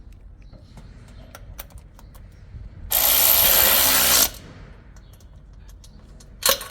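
A power tool runs once, loudly, for about a second and a half. Near the end comes a second, much shorter burst.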